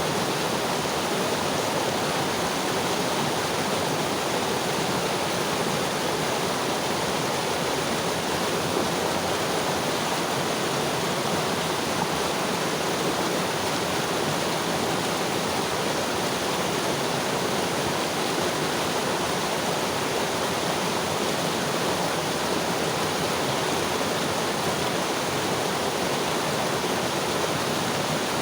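Mountain river flowing: a steady, even rush of running water.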